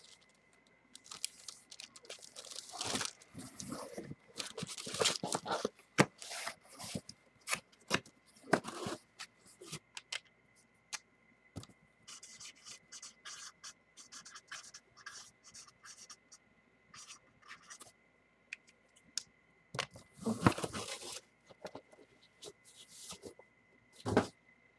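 Plastic wrapping and a cardboard box being handled: irregular crinkling, rustling and scraping with scattered small knocks, busiest in the first several seconds and again about twenty seconds in.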